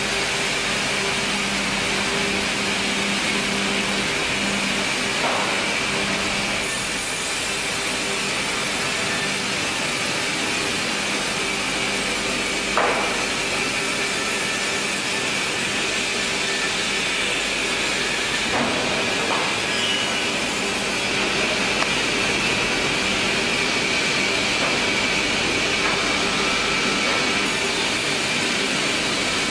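Sawmill machinery running with a steady hiss and hum, with a few short knocks spread through it.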